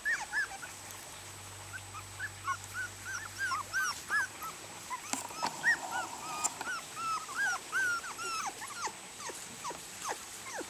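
Four-week-old Norrbottenspets puppies whimpering and yipping as they play, a rapid string of short, high-pitched squeaks that rise and fall, several a second, one after another.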